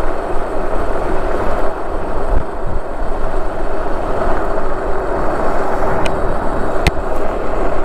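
Wind rushing over the microphone and tyre and road noise while riding a Super73 S2 electric bike along a street, with two short sharp clicks near the end.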